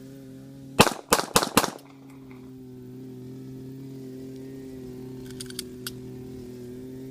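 A rapid string of four pistol shots, about a quarter second apart, about a second in, over a steady low hum. A few faint clicks follow later.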